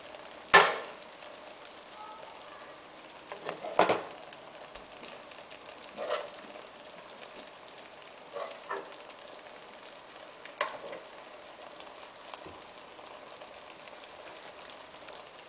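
Kashk bademjan simmering in a frying pan with a steady soft sizzle, while a spoon scoops sauce and knocks against the pan about six times, the loudest about half a second in and near four seconds.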